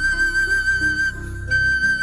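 Ringtone music: a flute holds one long high note over a lower accompaniment of changing bass notes, dipping briefly in loudness about halfway through.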